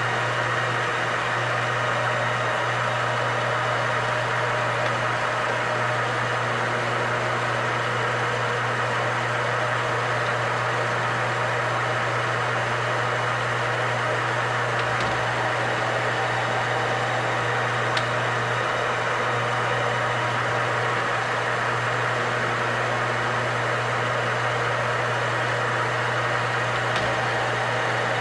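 Metal lathe running steadily under power, its motor and gear drive giving a constant hum and whir, while a single-point threading tool chases a damaged thread, taking about one thou per pass. A single sharp tick sounds about two-thirds of the way through.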